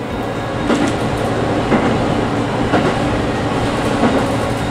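KiHa 183 series 5200 diesel railcar (North Rainbow Express) running at speed, heard from on board. A steady engine and running drone, with the wheels clacking over rail joints about once a second.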